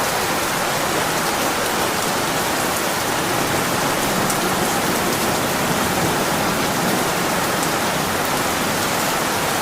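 Steady heavy monsoon rain falling and pattering on surfaces: an even, unbroken hiss with fine drop ticks.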